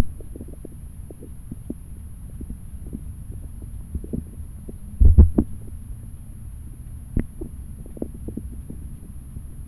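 Muffled low rumble of stream water recorded underwater by a cheap waterproof camera, with scattered soft knocks and a louder cluster of thumps about five seconds in.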